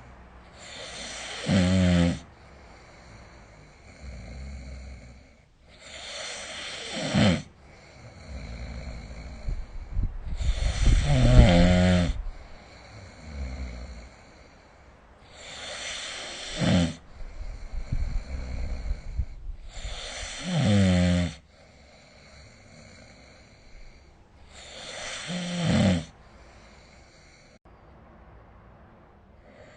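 A sleeping person snoring: six loud snores, one about every four to five seconds. Each is a rasping, pitched rumble that swells and then cuts off sharply.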